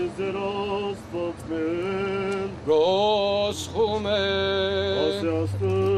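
A male voice chanting a slow Armenian Church hymn, holding long notes that waver and slide between pitches; it grows louder about three seconds in.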